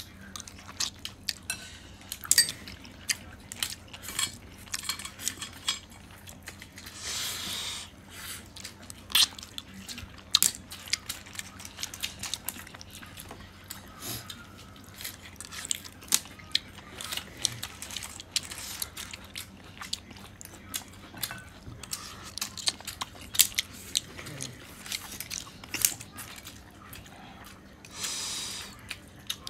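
Someone eating cooked clams from a stainless steel bowl: irregular sharp clicks and clatter of clam shells and chopsticks against each other and the bowl, with chewing. Two longer hissing sounds come about seven seconds in and near the end.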